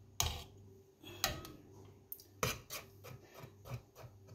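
Metal ladle stirring thick rice-pudding cream in a stainless steel pot, with a few knocks and scrapes of the ladle against the pot.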